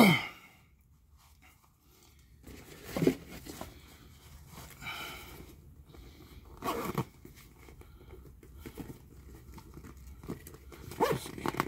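Scattered rustling, crinkling and light knocking handling noises as a small camera is packed into its black carrying case and the case is closed, after a short loud sound right at the start.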